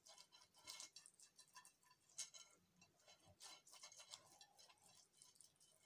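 Faint, irregular light strokes and taps of a pastry brush spreading oil over the inside of a glass bowl.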